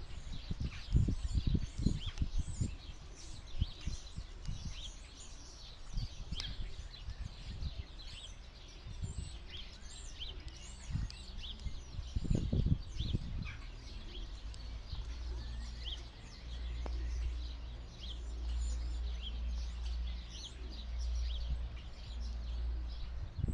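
Small flock of goldfinches twittering as they feed, many short high calls overlapping throughout. Under them are irregular low thuds, and from about two-thirds of the way in a steady low rumble.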